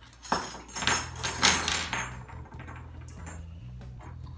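Zippered toolkit pouch opened and a handful of small metal wrenches tipped out, clattering onto a wooden floor for about two seconds.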